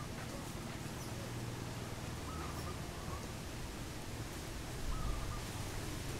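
Quiet outdoor background noise with about three faint, short animal calls, and a brief low rumble about five seconds in.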